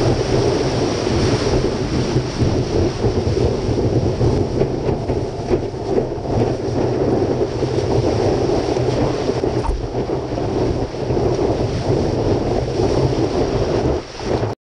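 Rushing whitewater and spray around a stand-up paddleboard riding a wave, heard through a board-mounted action camera, with heavy wind rumble on the microphone. Cuts off suddenly near the end.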